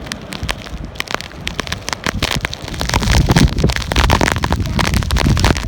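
Blizzard wind gusting hard across the microphone, a low rumble that swells about three seconds in, with many sharp crackling ticks through it.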